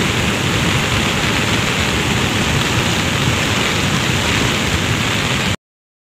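Muddy flash-flood torrent rushing past, a steady loud churning noise of water that cuts off suddenly near the end.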